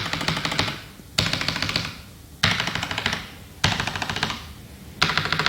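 Rexus Legionare MX5.1 mechanical keyboard fitted with AKKO CS Rose Red linear switches, typed on fast in repeated bursts. A quick run of high-pitched key clacks starts about every second and a quarter, five times, each run fading out.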